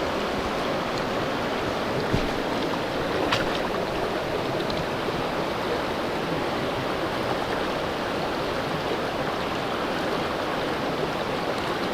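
Steady rush of a flowing creek, with a couple of faint ticks early on.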